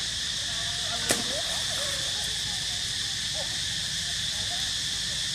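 Steady, high-pitched chorus of forest insects, with faint short chirping calls underneath and one sharp click about a second in.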